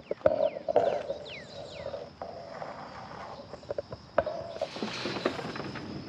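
Steady high-pitched insect drone, with a few quick falling chirps in the first second and a half and scattered knocks and rustling.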